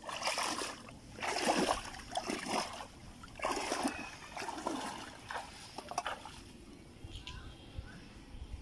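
Footsteps wading through shallow muddy water, splashing in four short bursts over the first four seconds, then quieter as the walker leaves the water.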